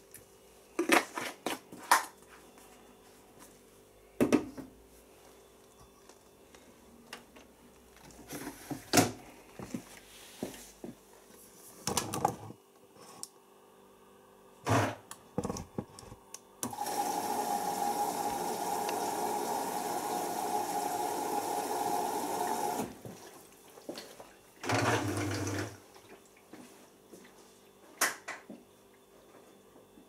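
Beko WMB81445L front-loading washing machine starting its synthetics cycle. Scattered clicks and knocks come first; about halfway through, water rushes in for about six seconds as the machine fills, and a shorter burst with a low hum follows a couple of seconds later.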